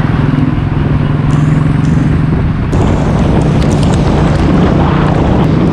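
Motorcycle running on the road at speed: a steady engine drone under heavy road and wind noise.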